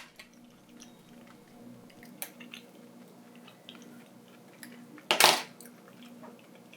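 Light clicks and taps of small hand tools working adhesive tape onto a phone's frame, with one short, louder rasp about five seconds in.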